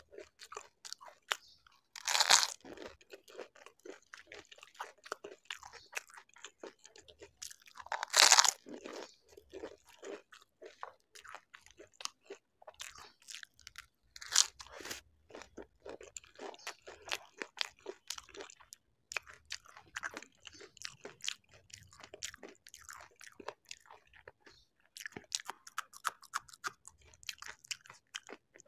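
Close-up eating sounds: crisp dahi golgappa (pani puri) shells crunched in the mouth, with loud bites about 2, 8 and 14 seconds in and steady chewing between them.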